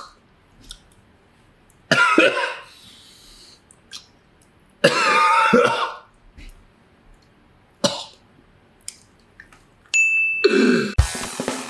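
A man coughing and clearing his throat in two harsh bouts, about two and five seconds in, the second longer and wavering in pitch, with a single click a few seconds later. Near the end a short thin tone sounds and electronic music with drum hits starts up.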